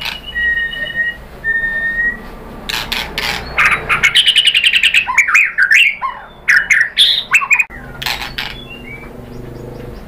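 White-rumped shama (murai batu) singing: a few short whistled notes, then a loud burst of varied song from about three to eight seconds in, with a fast rattling trill, sweeping whistles and sharp chattering notes.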